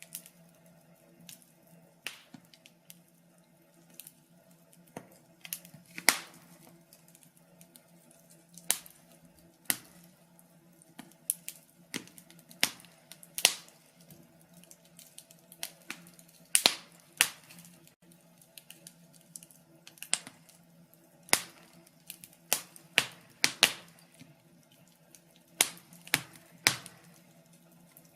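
Wood fire crackling: irregular sharp pops and snaps, a few louder than the rest, over a faint steady low hum.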